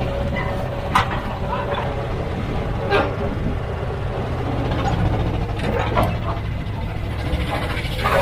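Heavy diesel machinery running steadily, with a few sharp clanks about a second, three seconds and six seconds in.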